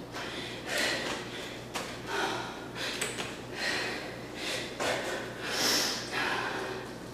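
A woman breathing hard, with short, forceful exhalations about once a second, from the exertion of burpee-style star push-ups.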